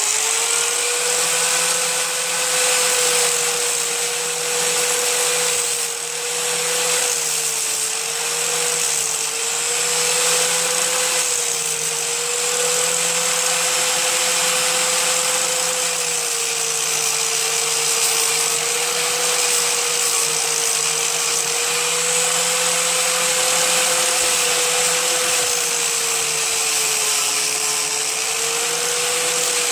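Corded electric angle grinder running steadily, its disc held lightly against a hardened hot-glue patch in a plastic lawn tractor hood to grind the protruding blob level. A steady whine over the grinding noise, dipping slightly in pitch now and then as the disc loads against the plastic.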